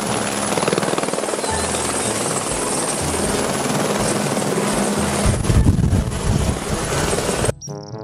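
Light single-engine helicopter of the AS350 Écureuil type flying low: rapid rotor chop over a steady turbine and rotor noise, louder a little past the middle and cutting off suddenly near the end.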